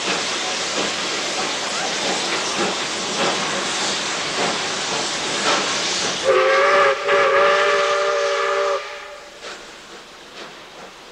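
Whistle of ex-South Australian Railways steam locomotive 520 sounding one held chord of several notes for about two and a half seconds, starting a little past halfway. Before it, a steady rushing noise of the moving train and air past the open carriage window, which drops away after the whistle.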